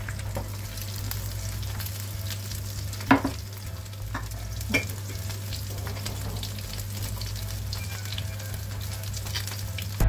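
Coated fish fillets sizzling and spattering in hot oil in a frying pan, a steady crackle over a low hum. Two sharper clicks stand out, about three seconds in and just before five seconds.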